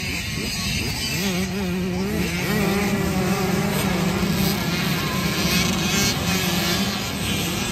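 Several small youth dirt bike engines revving hard as a pack of bikes accelerates past, their pitches wavering up and down and overlapping.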